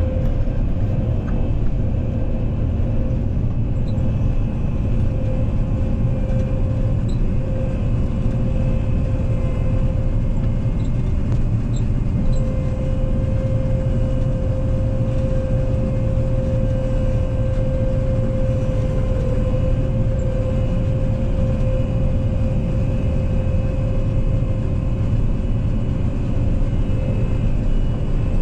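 Combine harvester travelling on the road, its engine running at a steady drone with a steady whine held over it.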